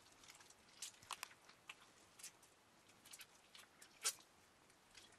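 Faint, irregular wet squelches and small smacks of fresh butter being squeezed and kneaded by hand.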